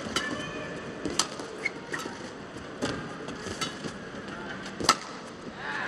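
Badminton rally: a string of sharp racket strikes on the shuttlecock, about one a second, the loudest about five seconds in, over the steady hum of the arena crowd.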